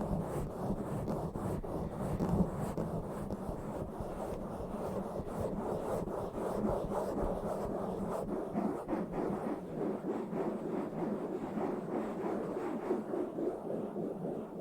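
Fast, rough scratching and rubbing directly on a bare microphone, going on without a pause.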